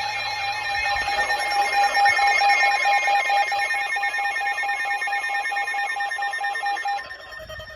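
Emergency Alert System attention tone: several steady, shrill electronic tones layered over a warbling buzz. The loudest tone cuts off about seven seconds in, while a fainter single tone carries on; the signal announces an incoming weather warning.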